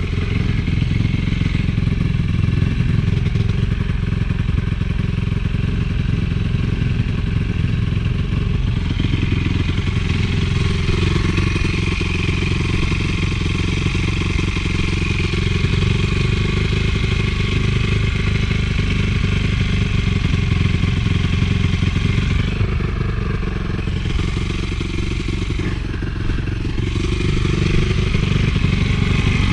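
Honda CRF450 four-stroke single-cylinder motocross engine running under way at a fairly steady pitch, easing off briefly a couple of times near the end.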